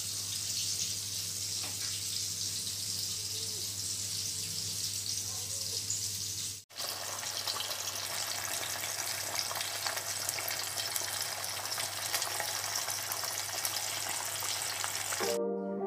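Steady hiss with a low hum that cuts off abruptly several seconds in; then thick fish curry simmering in a pot, a dense bubbling crackle.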